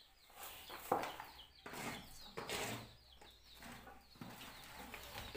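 Dry straw rustling and a bamboo basket scraping over a packed earth floor as litter is swept up, in several short bursts, with small birds chirping.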